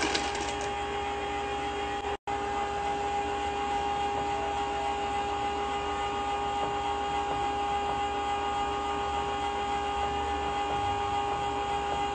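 Steady machine hum with a constant pitched whine, cutting out for an instant about two seconds in.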